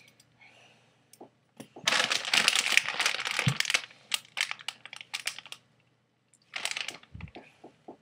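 A packet of cough drops crinkling and rustling as it is handled, in one long crinkle of about two seconds, then scattered small clicks and crackles, and another short crinkle near the end.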